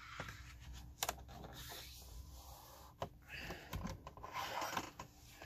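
Sheet of cardstock being folded in half along its score line and pressed flat by hand on a scoring board: light paper rubbing and rustling, with a few sharp clicks, the clearest about one and three seconds in.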